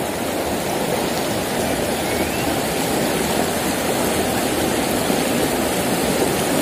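Shallow rocky stream flowing steadily over stones and boulders.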